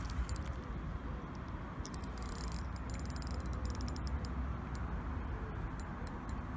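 Fishing reel's clutch ticking in irregular runs of sharp clicks as a hooked carp takes line, over a low steady rumble.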